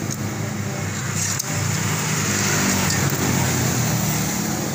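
Steady hum of a motor vehicle engine running at an even speed, with one light click about a second and a half in.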